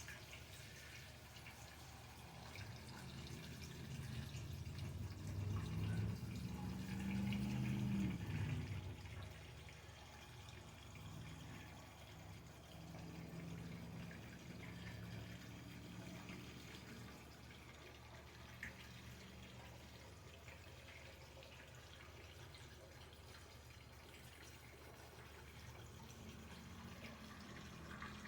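Kerosene pouring through a funnel into a portable heater's fuel tank, loudest for a few seconds about four to nine seconds in, then running on more quietly.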